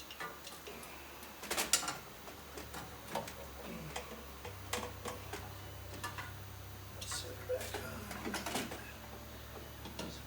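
Scattered clicks, taps and clinks of hands and tools working on a Holley four-barrel carburetor as it is fitted and its lines plugged in, with a couple of louder clusters about a second and a half in and near eight seconds. A low steady hum runs underneath.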